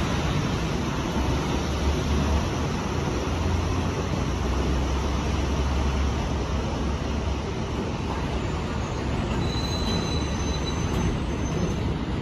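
MTA R127 refuse (garbage) work train approaching on elevated track: a steady rumble of wheels and motors on the rails, with a faint, high-pitched wheel squeal near the end.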